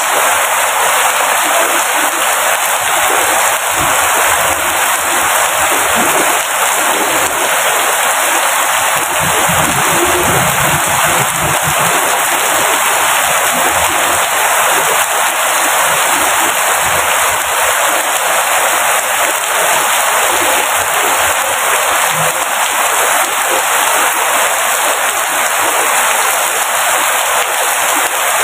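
Steady rain falling, a constant even hiss with no breaks.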